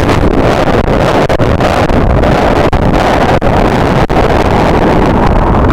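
Loud wind buffeting the microphone over the running engine and water rush of a jet ski under way.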